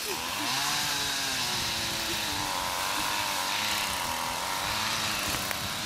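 Petrol brush cutter (string trimmer) running while mowing grass, its engine revving up and down.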